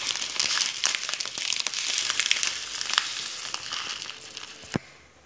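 Pot of mhamsa (berkoukes pasta pearls) cooking in broth, bubbling and sizzling with a dense crackle that slowly fades, then cuts off with a sharp click near the end.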